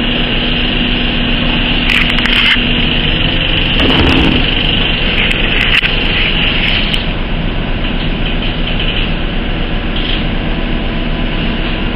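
Steady machine drone of a motor running in the paint workshop, with a constant hum, and brief rustling of the handheld camera about two and four seconds in.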